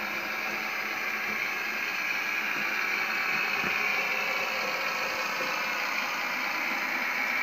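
Märklin H0 model railbus of the DB series 724 (ex-VT 95.9) running along the track: a steady mechanical whirr from its motor, gears and wheels, growing a little louder as it comes closer.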